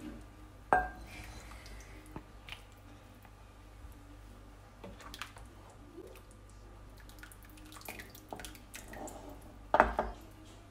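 Soup being ladled from a metal pot into a ceramic bowl: scattered knocks and clinks of the ladle against the pot and bowl, with splashes and drips of broth. A sharp clink comes about a second in, and the loudest knocks come near the end.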